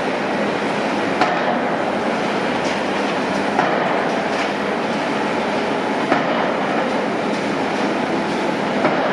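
Heavy construction machinery running steadily, with a few sharp metallic knocks and clanks.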